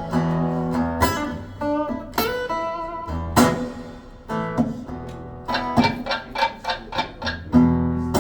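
Recorded music of a plucked and strummed guitar passage between sung lines, played over Børresen C1 stand-mount hi-fi loudspeakers and heard through a phone's microphone in the listening room, with a quick run of notes about two-thirds of the way through.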